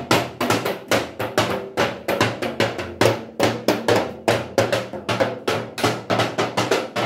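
Music with a steady, fast drum beat, about four strikes a second.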